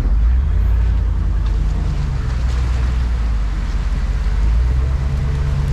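Off-road vehicle's engine running under load, a steady low drone whose pitch dips about two seconds in and rises again near the end.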